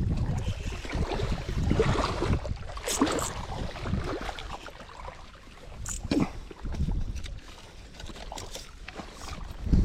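Water sloshing and splashing with wind on the microphone as a hooked tilapia fights on the line, with irregular louder splashes.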